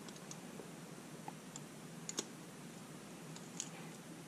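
Faint crinkles and clicks of copper foil tape being pressed and folded by hand around a small acrylic part, a few short sharp ones scattered through, the loudest about two seconds in.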